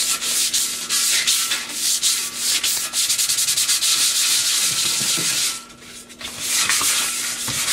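60-grit sandpaper rubbed by hand over the painted metal base of a gumball machine in quick back-and-forth scratchy strokes, scuffing up the glossy paint so new paint will stick. The strokes stop briefly about three-quarters of the way through, then start again.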